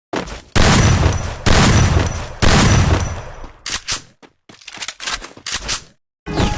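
Powered grease gun pumping grease in three bursts of about a second each, a fast rattling pump stroke, followed by shorter, fainter bursts.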